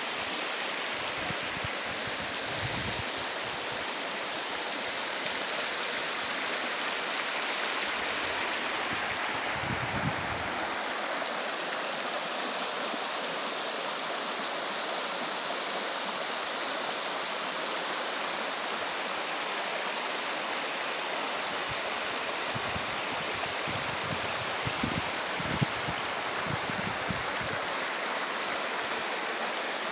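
Shallow rocky stream flowing over stones and small riffles: a steady sound of running, splashing water.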